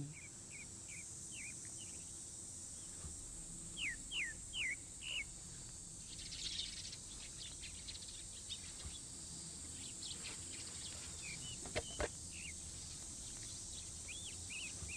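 Quiet outdoor ambience: a bird giving runs of short, falling chirps over a steady high hiss. There is one sharp click about twelve seconds in.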